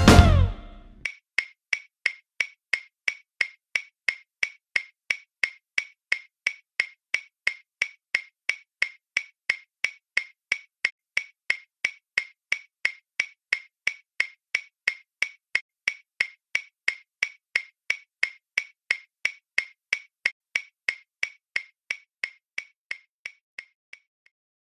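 A clock ticking steadily, about two ticks a second, growing a little fainter near the end before it stops. The last chord of the background music dies away in the first second.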